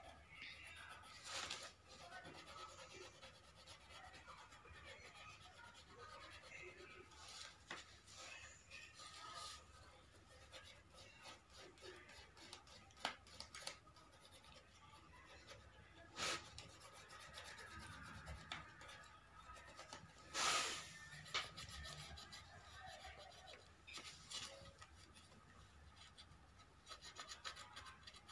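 Colour pencil being scribbled back and forth on paper: a faint, steady rubbing, broken by a few soft knocks.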